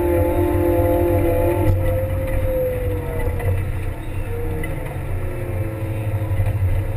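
Kramer 380 compact wheel loader running while pushing snow with its front plow: a steady engine drone with a whine over it, which drops in pitch about two to three seconds in as the machine eases off.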